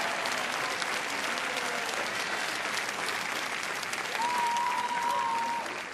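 Large crowd applauding, a dense patter of many hands clapping. About four seconds in, a single long high tone is held over the clapping for about a second and a half.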